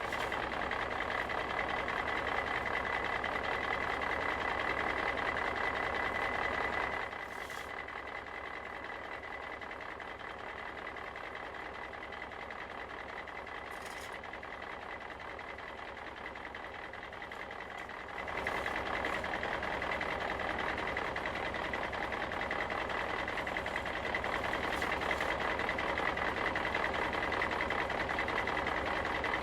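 Steady running of a heavy construction vehicle's engine and machinery, with a steady high whine over it. It drops in level about seven seconds in and comes back up at about eighteen seconds.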